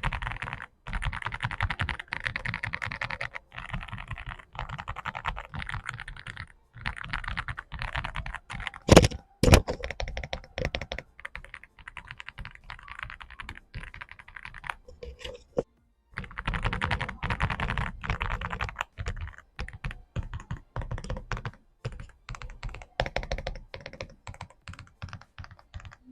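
Typing on an Aula F75 mechanical keyboard with factory pre-lubed switches: quick runs of keystrokes in bursts with short pauses between them. Two much louder thuds land about nine seconds in, half a second apart.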